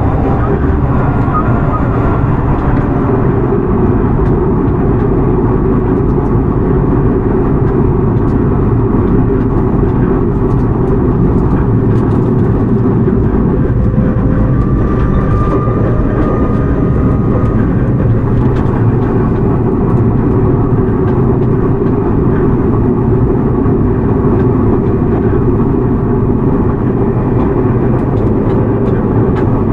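Toei 6300 series subway train with Hitachi GTO-VVVF control running at a steady speed between stations: an even, loud rumble of the wheels and running gear, with a faint brief tone about halfway through.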